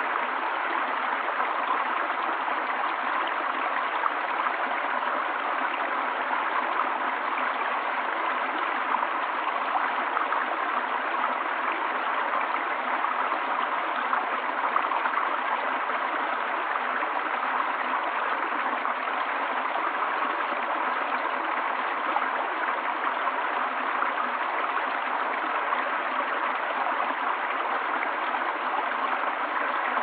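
Shallow rocky stream splashing over stones and small drops, a steady, unbroken flow of water.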